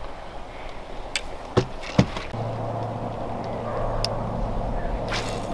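Two sharp clicks, then a small boat's electric trolling motor starting about two seconds in and running with a steady low hum as the boat moves off toward deeper water.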